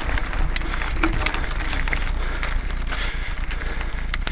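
Mountain bike rolling over a rough dirt and gravel trail, heard close up from the bike: a steady low rumble from the tyres on the ground, with frequent clicks and rattles from the bike and loose stones.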